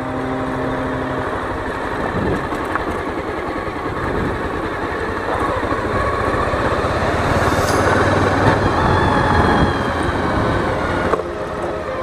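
A vehicle driving along a rough dirt track: its engine running under a steady rush of road and wind noise, getting a little louder past the middle.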